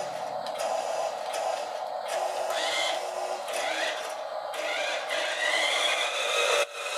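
Small electric drive motor and gearbox of a 1:20 Carson Mercedes-Benz Arocs RC truck running with a steady whir, the whine rising in pitch several times as the truck speeds up, then held higher near the end.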